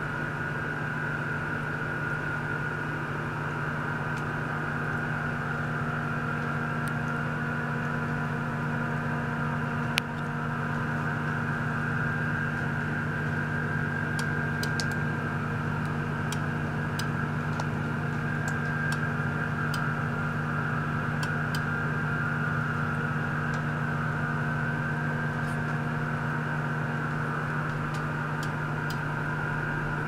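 Small water-circulation pump running steadily, pushing water through tubing into the tank: an even hum with a higher whine on top. One sharp click about ten seconds in, and faint light ticks through the second half.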